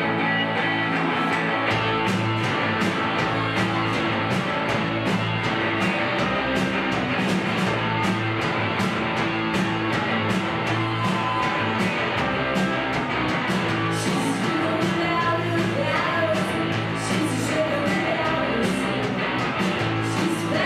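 Indie rock band playing live: electric guitars and bass with drums, the steady drum beat and low bass coming in about two seconds in.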